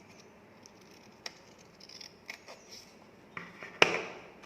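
Scissors cutting a paper strip: a few light clicks of the blades, then one louder snip through the paper near the end that trails off briefly.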